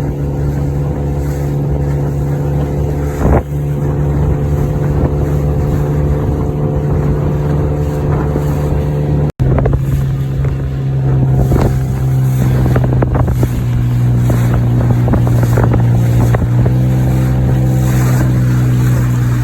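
Outboard motor of a small aluminium dinghy running steadily under way, with wind buffeting the microphone. There is a single knock about three seconds in and a brief break near the middle, after which the engine runs on at a slightly lower pitch.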